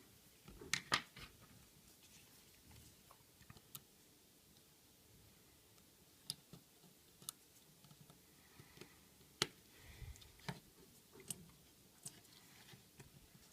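Faint, scattered clicks and light taps of small tools and parts being handled while an iPhone 5 is taken apart, as its logic board is freed from its last screws.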